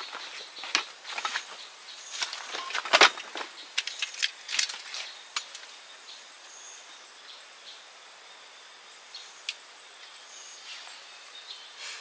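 Steady high-pitched insect chorus, with a quick run of short knocks and snaps over the first five or six seconds, the loudest about three seconds in; after that only an odd click.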